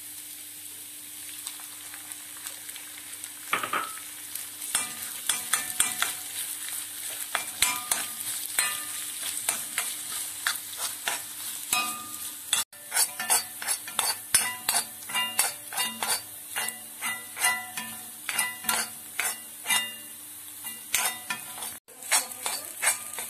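Steel spoon scraping and tapping against a kadai as egg is scrambled into a sausage and grated-coconut thoran, over a steady frying sizzle. The strokes are sparse at first and come quicker, about two to three a second, from about halfway.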